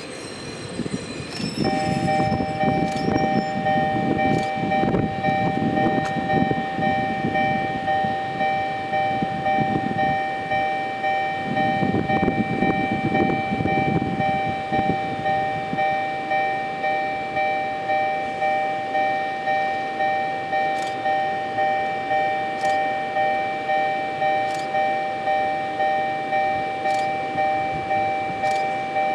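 Railway level-crossing alarm ringing in a steady two-tone clang, about one and a half strikes a second, starting about two seconds in. Underneath, in the first half, is the low rumble of a vintage electric railcar moving slowly over the yard tracks.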